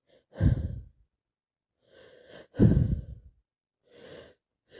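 A woman with a head cold sneezing twice, about half a second in and again near the three-second mark. Between the sneezes there are quieter gasping in-breaths, and another in-breath near the end leads up to the next sneeze.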